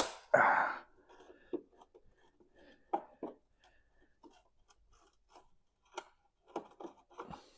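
A sharp click, then a short scrape, followed by scattered light clicks and taps of hand tools working on a car's metal bodywork, undoing screws on a rear wheel arch trim.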